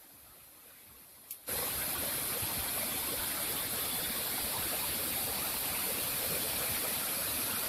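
Fast shallow stream rushing over rocks below a waterfall: a steady rush of water. It is faint at first and comes in loud and even all at once about a second and a half in, just after a short click.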